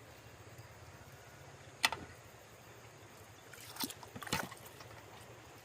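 Shallow water sloshing and trickling while snails are searched for by hand. There is a sharp knock a little under two seconds in and a short run of knocks and splashes around four seconds.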